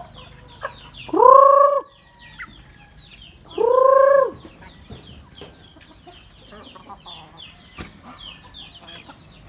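Native chickens at feed: one bird gives two loud drawn-out calls about two and a half seconds apart, each under a second long, over a continual high peeping from the young birds.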